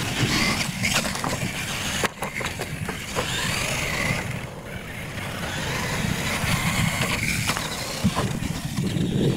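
Radio-controlled monster trucks racing on a dirt course: their motors whine, rising and falling with the throttle, over tyre noise on the dirt, with a few sharp knocks as they hit the ramps and bumps.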